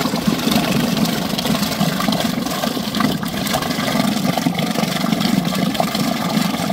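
Minn Kota Endura electric trolling motor running steadily, its propeller churning and splashing the water in a plastic trash can.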